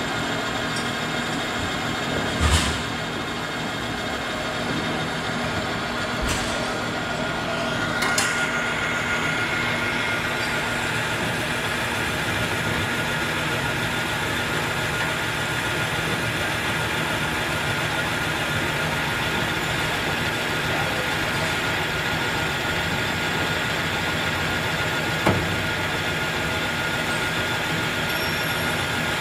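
Metal lathe running, its spindle spinning a steel shaft: a steady machine hum with a high whine, broken by a few short sharp clicks, the loudest about two and a half seconds in.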